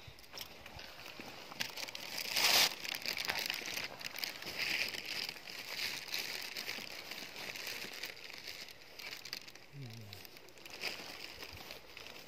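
Dry grass and weed stems rustling and crackling as someone pushes through them on foot, with a louder swish about two and a half seconds in.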